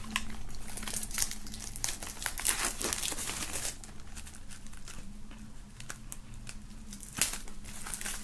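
Plastic shrink-wrap being peeled and torn off a CD case by hand: irregular crinkling and crackling, busiest in the first few seconds.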